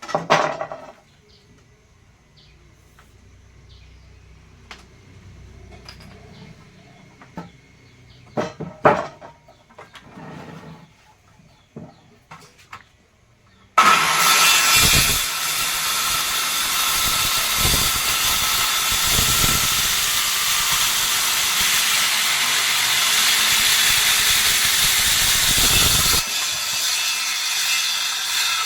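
Scattered knocks and taps, then about halfway through a power tool starts abruptly and runs loud and steady for about twelve seconds before dropping to a lower level.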